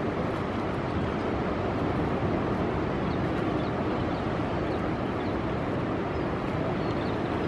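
Steady wash of ocean surf breaking on the reef, mixed with wind, with faint short high chirps in the second half.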